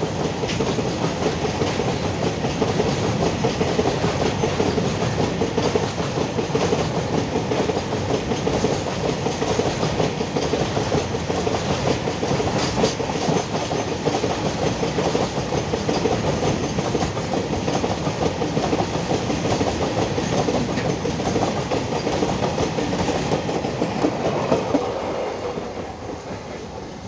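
Freight train wagons rolling past at speed, the wheels clattering steadily over the rail joints. The noise fades near the end.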